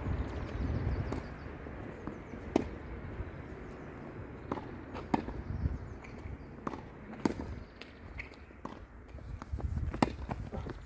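Tennis ball struck by rackets and bouncing on a hard court during a doubles rally: a string of sharp pops at uneven intervals, some distant and some close, the loudest near the end. A low wind rumble on the microphone sits under them at first.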